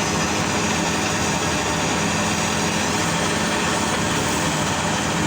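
Heavy mining machinery's diesel engine running steadily, a constant loud hum with an even mechanical noise over it.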